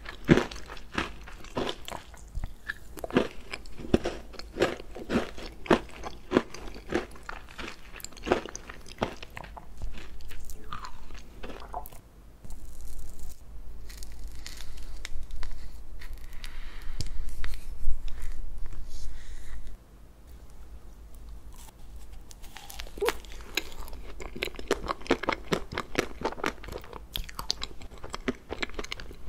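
Crinkling and crackling as the plastic band is peeled off the side of an ice cream cake. This is followed by a steadier, louder scraping hiss as a knife cuts into the frozen cake, then a dense scratchy crackle as a spoon scoops out the ice cream.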